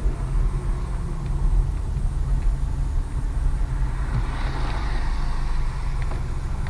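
Low, steady rumble of a car running, heard from inside the cabin. A hiss swells in about four seconds in.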